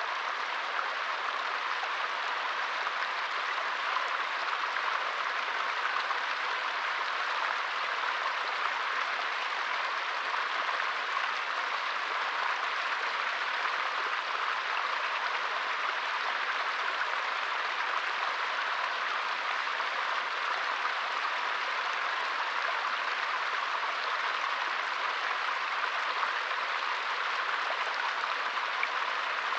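Small forest stream flowing: a steady, even hiss of water running over stones, bright and without low rumble, unchanging throughout.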